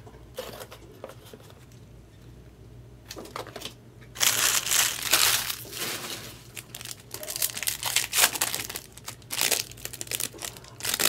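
Wrapper of a trading-card pack being torn open and crinkled: a few faint rustles, then loud, irregular crackling from about four seconds in.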